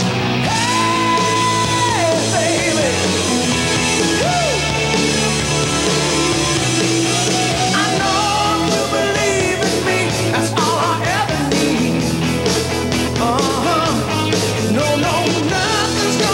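Rock song with a singing voice over a band; the drum beat grows busier about halfway through.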